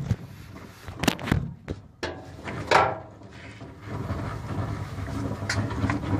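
Knocks, clatter and a scrape of a phone being handled and set down against a painted metal vehicle body. About four seconds in, a steady low rumble takes over.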